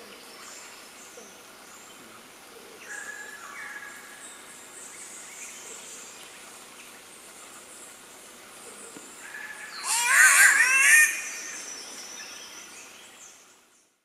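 Green catbird giving its wailing, crying-baby-like call once, about ten seconds in, lasting just over a second.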